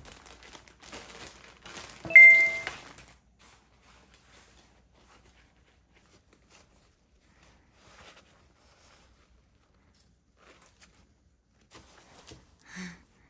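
Clear plastic packaging crinkling as a bag is drawn out of it. About two seconds in, a single bright bell-like ding rings for about half a second. After that there are only faint handling sounds.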